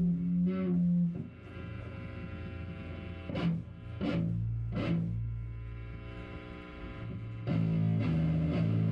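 Live band playing heavily distorted electric guitar with long held notes. A few sharp hits fall in the middle, and the volume dips about a second in, then swells back up near the end.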